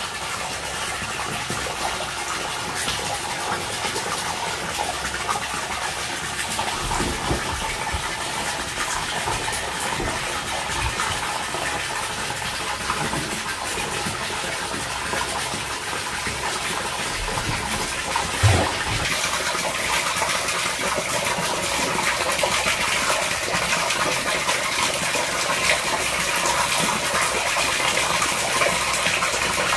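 A stream of water from a pipe pouring into a shallow inflatable pool, a steady splashing gush that grows a little louder in the second half. There is a brief thump about two-thirds of the way through.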